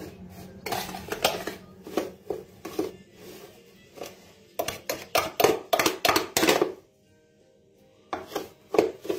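Kitchen utensils and a baking tray clattering and knocking in quick irregular strikes while rfis is mixed by hand. The knocks are densest a few seconds in and stop briefly before a few more.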